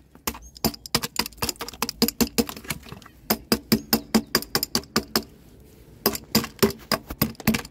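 A metal rod tapping rapidly at set concrete crusted on a plastic fibre-optic splice closure, chipping it out from around the cable entry ports. The taps are sharp, quick and uneven, several a second, with a short pause about five seconds in before they start again.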